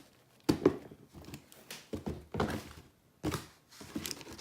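Handling noise as a sneaker is turned over and moved about: about half a dozen soft thunks and taps.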